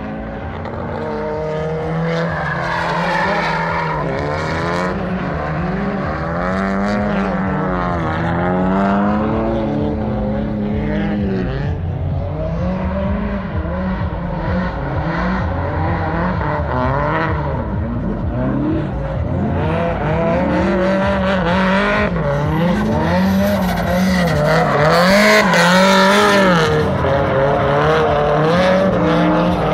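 Drift cars' engines revving up and down again and again as the cars slide sideways through turns, with tyre squeal, growing louder as the cars come closer.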